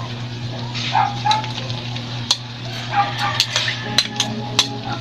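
Metal spatula scraping and clicking against a pan as chilies frying in pork fat are stirred, with a sizzle underneath.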